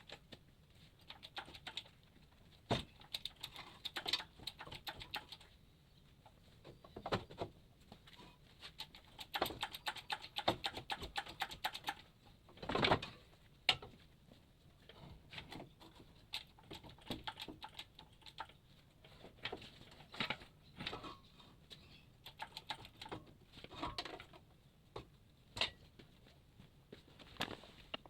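Irregular clicks and metallic clinks of hand tools and engine parts being handled, with quick runs of ticks and a louder knock about halfway through.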